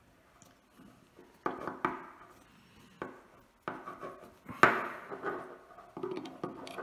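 Steel parts of a Martini Cadet rifle action clicking and knocking against each other as the breech block is fitted by hand to the trigger guard assembly: a string of small, separate metal clicks and knocks, the sharpest about two-thirds of the way through.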